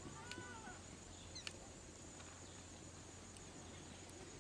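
Quiet outdoor background with a faint steady high hiss, broken by one short arching animal call near the start and a sharp high chirp about one and a half seconds in.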